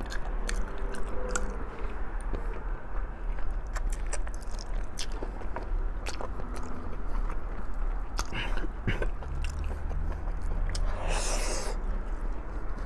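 Close-up eating sounds of a person chewing stewed pig's feet, with many short wet clicks and smacks of the mouth. A brief rushing sound comes about eleven seconds in.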